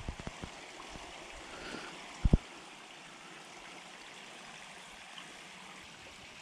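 Soft steady hiss of light rain falling on a calm creek, with a short low double thump about two seconds in.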